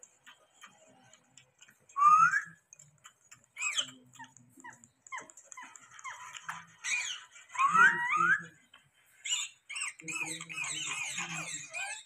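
Rose-ringed parakeets calling: two loud rising whistles, about two and eight seconds in, among short clicks and soft chatter, then a quick run of wavering chirps near the end.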